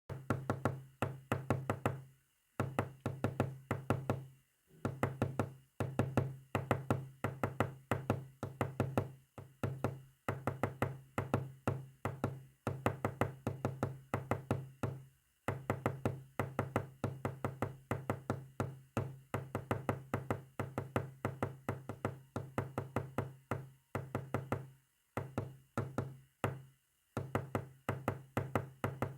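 Morse code sent as rapid knocking clicks, about five or six a second, in runs of one to three seconds with short pauses between. Each click has a short low ring.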